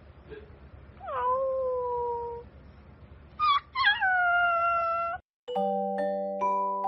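A puppy howling: one long drawn-out cry that drops in pitch and then holds about a second in, a couple of short yelps, then a second long cry. After a brief silence, music with struck mallet notes begins near the end.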